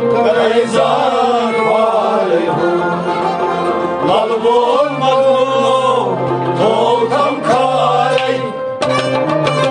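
A man singing a Kashmiri devotional kalam in long, sliding vocal lines, over instrumental accompaniment with steady low notes.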